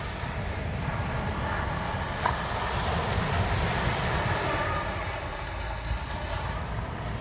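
Wind rumbling on the microphone over the steady wash of surf breaking on the beach, with a single sharp click about two seconds in.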